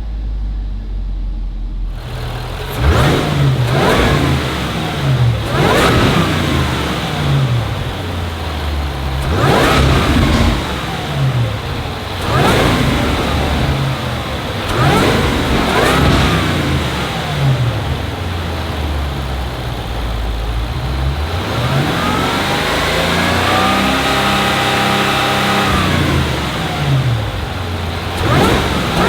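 Supercharged 5.0-litre V8 of a 2025 Land Rover Defender 110 idling, then revved again and again: a series of quick blips, each rising and falling in pitch. Near the end comes a longer rev, held high for a few seconds before it drops back, followed by one more short blip.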